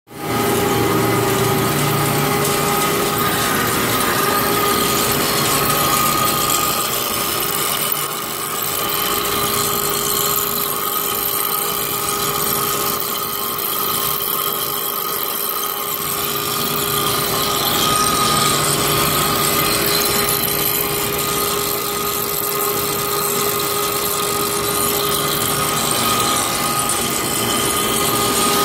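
Hankook Protec-9NC CNC lathe taking a heavy roughing cut on a large forged shaft, about 0.35 in deep at 0.020 in per revolution. The machine runs with a steady whine of several held tones over a continuous hiss from the cut.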